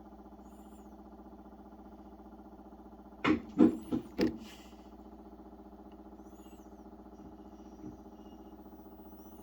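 Samsung WA50R5200AW top-load washing machine running with a steady motor hum. About three seconds in come four quick, loud knocks.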